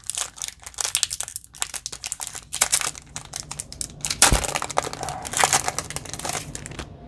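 Foil wrapper of a Pokémon card booster pack crinkling and tearing as it is opened, a dense run of irregular crackles.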